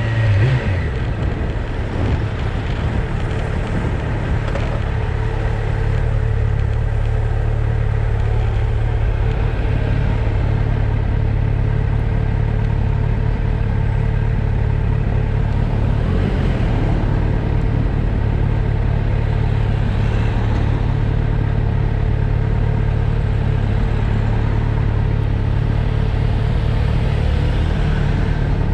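Motorcycle engine running under way at a steady speed. Its level dips in the first couple of seconds, then rises and holds an even note.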